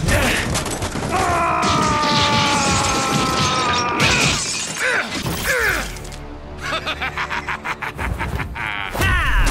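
Dubbed fight sound effects over music: sudden crash and shatter hits, a slowly falling whine lasting about three seconds starting a second in, and about two seconds of rapid rattling near the end.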